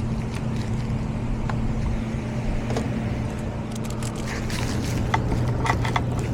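HVAC system running in cooling mode, a steady low mechanical hum with a few light clicks of handling around the last two seconds.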